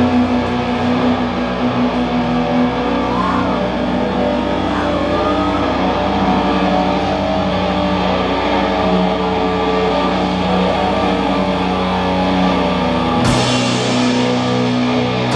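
Doom metal band playing live: distorted guitars and bass let a long droning chord ring. Near the end they change to a new chord with a cymbal crash.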